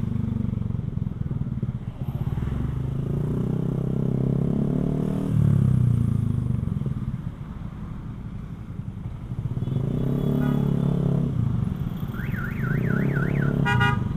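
Motorcycle engine with a NOB1 aftermarket exhaust running while riding, its note rising and falling with the throttle. Near the end, a short electronic warbling tone rises and falls several times a second.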